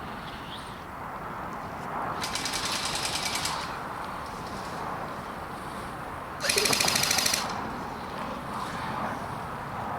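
Airsoft gun firing two full-auto bursts of rapid, evenly spaced shots, the first about two seconds in and lasting over a second, the second shorter and louder about six and a half seconds in.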